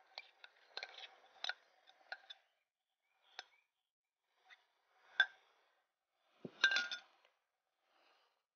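A spoon clinking and scraping against a glass jug as a thick milk-and-jaggery mixture is scraped out into a pot. A quick run of clinks comes in the first couple of seconds, then a few single clinks.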